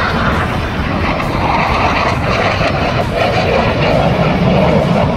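Fighter jet making a low pass: loud, steady jet engine noise whose pitch drops about three seconds in as it goes by.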